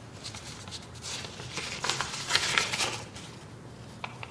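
Sheets of paper rustling as they are handled and leafed through, loudest in the middle, with a short sharp tick near the end.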